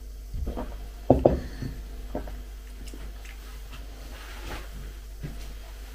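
A few short sounds of drinking from a ceramic mug and setting it down on the table, the loudest a pair of knocks about a second in, then a few faint small handling sounds.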